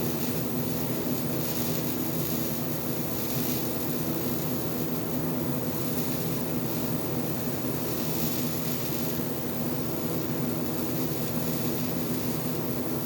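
AC TIG welding arc on aluminium, a steady buzzing hum over a hiss.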